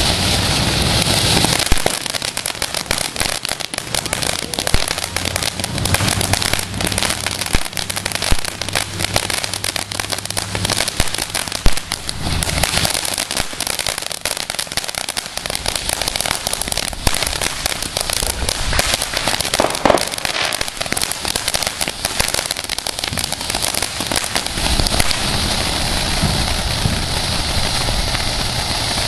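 Sting of the Scorpion consumer fireworks cake firing: a rapid, dense run of bangs and crackling shots for about twenty seconds, with a few louder reports among them, thinning out near the end.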